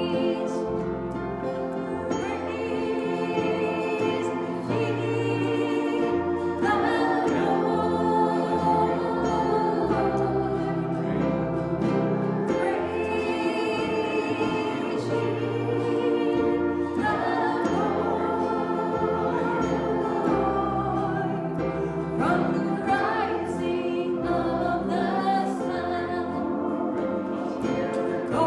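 Music: a group of voices singing a gospel-style song over instrumental accompaniment, with a bass line moving note by note.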